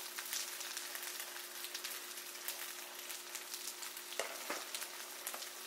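Pot of sour soup simmering on the stove: a steady hiss of many small bubbles popping at the surface, not yet at a rolling boil. A faint steady hum underneath stops about four seconds in, with a light knock.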